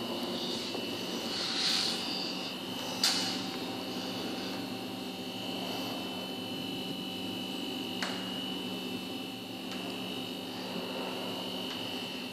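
Steady mechanical hum with a high whine over it, broken by a light click about three seconds in and another about eight seconds in.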